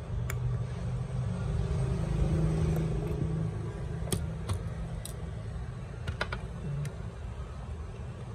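A low, steady rumble that swells a little two to three seconds in, with a handful of sharp light clicks and taps from plastic printer parts being handled during disassembly.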